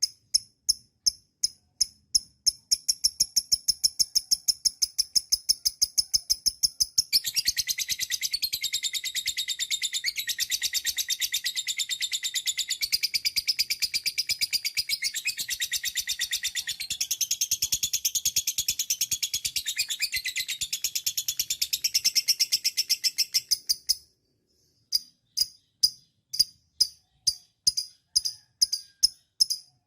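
Lovebird 'ngekek': a long, rapid chattering trill that starts about seven seconds in, runs for about seventeen seconds and cuts off suddenly. Behind it, a steady series of high chirps repeats about twice a second throughout.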